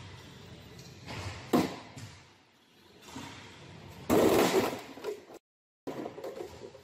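A stack of padded plyometric boxes crashing down under a heavy man's weight: a loud, rough thud and scuffle about four seconds in, lasting about a second. A single sharp knock comes earlier.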